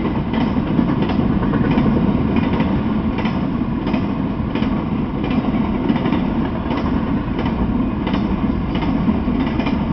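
Intermodal freight train carrying highway trailers on flatcars, rolling steadily past: a continuous low rumble of wheels on rail, with short clicks repeating about twice a second.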